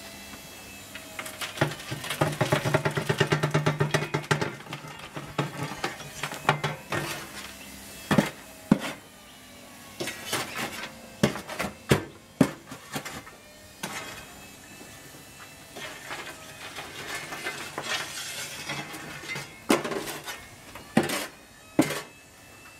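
Lumps of charcoal clattering and knocking against a steel spit-roast trough and the hot coals as a long-handled shovel pushes and spreads them. There is a dense rattle about two seconds in, then scattered sharp knocks and scrapes.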